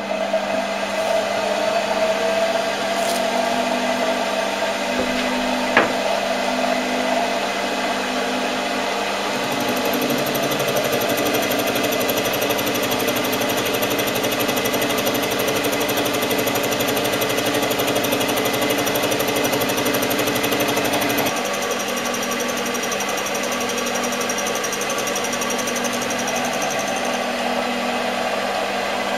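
Optimum D180x300 Vario mini lathe running at about 600–700 rpm with a spinning cutter in the chuck milling an aluminium block. The spindle starts up at the beginning, then runs as a steady machine hum under the noise of the cut. Part of the lower cutting noise drops away about three quarters of the way through.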